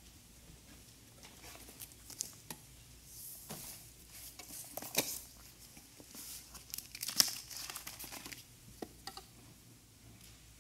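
Irregular rustling, crinkling and small clicks from a binder and its pages being handled, with the sharpest clicks about halfway through and again a couple of seconds later.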